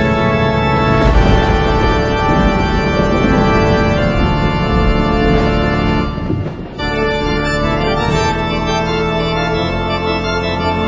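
Organ music playing held chords, with a short dip in level a little past halfway.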